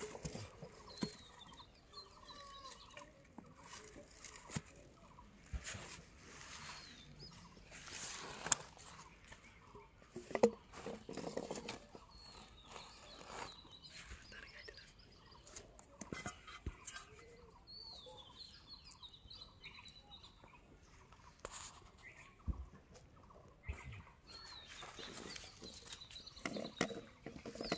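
Scattered clicks and rustles of hands working bamboo tubes, string and a plastic sack, with small birds chirping and domestic fowl calling now and then.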